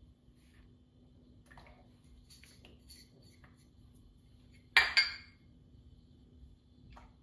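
Light clinks and clicks of small hard objects, with two sharp knocks in quick succession about five seconds in, over a faint steady hum.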